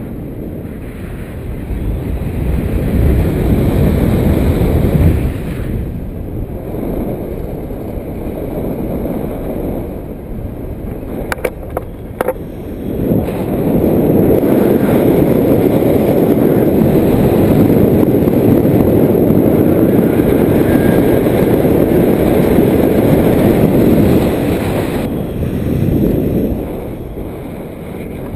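Wind rushing over the microphone of a camera on a selfie stick during a paraglider flight: a loud, low rumble that swells and eases, strongest in the second half, with a few brief clicks about halfway through.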